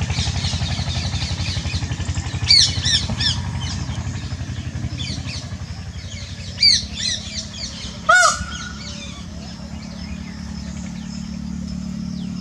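Wild birds giving bursts of short, sharp chirps, with one louder call about eight seconds in, over the steady low throb of a motor running.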